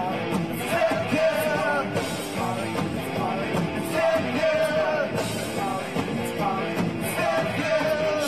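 Live rock band playing, with a male lead vocal sung into a microphone over the band.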